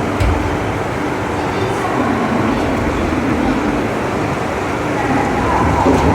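Veneer peeling lathe running: steady, loud mechanical clatter and rumble, with a sharp knock just after the start and another near the end.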